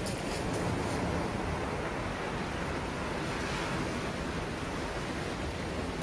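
Sea waves breaking and washing in over a rocky shore: a steady, unbroken surf wash.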